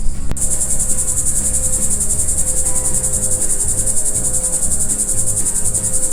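A shrill insect trill, a fast, dense pulsing, starts abruptly about a third of a second in and holds steady, over a low rumble.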